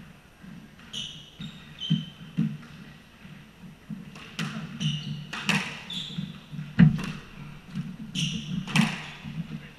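Squash rally: the ball cracks off racquets and the court walls in a string of sharp hits, the loudest about seven seconds in. Sneakers squeak briefly on the hardwood floor between the shots.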